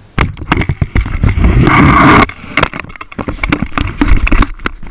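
Hands grabbing and handling a GoPro camera right at its microphone: rapid knocks and clicks, with a loud scraping rub for about a second in the middle.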